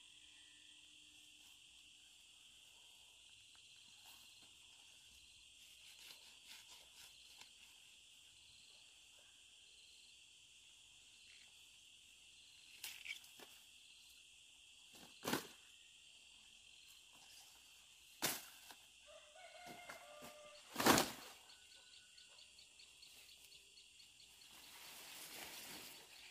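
Knife blade chopping through taro stalks: a few sharp strikes, four of them standing out, the last the loudest. Under them a steady, faint high insect drone.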